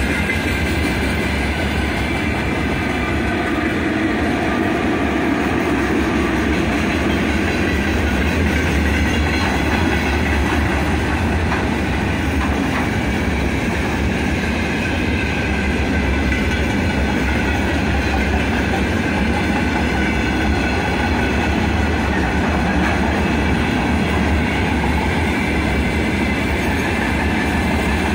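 Open gondola wagons of a long freight train rolling past at close range: a steady, loud rolling noise of steel wheels on the rails that runs on without a break.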